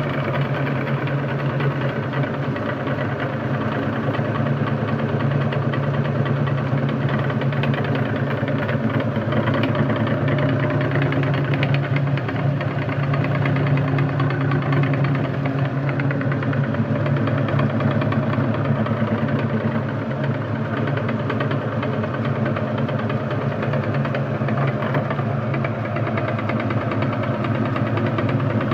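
Meat grinder running steadily, its motor humming continuously as it grinds.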